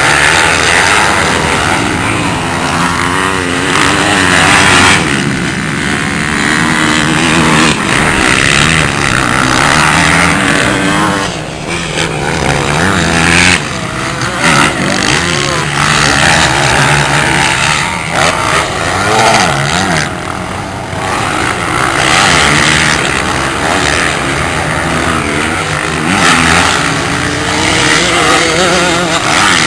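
Several motocross dirt bikes racing on a dirt track, their engines revving up and down in pitch over and over as the riders accelerate and back off through the course.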